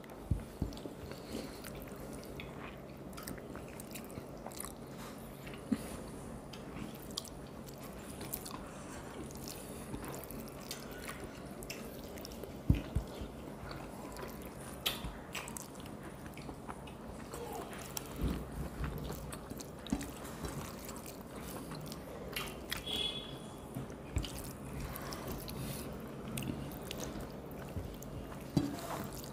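People eating rice and curries by hand: quiet chewing and scattered soft clicks and taps of fingers and plates, over a steady low hum.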